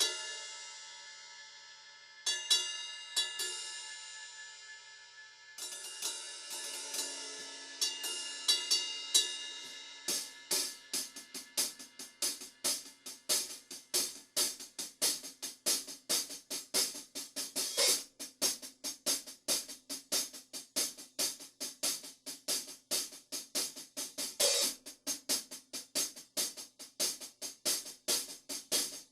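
Drum kit played on its own for a metal song. Cymbals are struck and left to ring for the first ten seconds or so, then a fast, steady groove of cymbal and snare strokes takes over.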